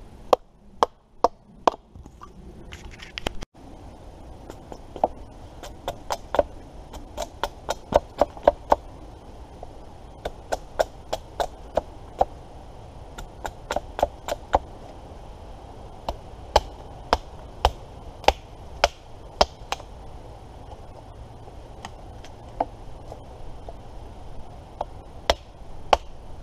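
Wood being chopped and split by hand: repeated sharp blows into wood, irregular, about one or two a second, with a brief break about three and a half seconds in.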